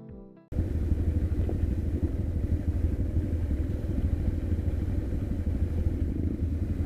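Motorcycle running on the move, a steady low rumble with constant flutter, as heard by a camera mounted on the bike; it cuts in abruptly about half a second in.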